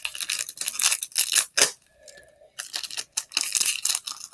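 Soccer trading-card pack being torn open by hand, its wrapper crackling and crinkling in quick irregular bursts, with a short lull about two seconds in.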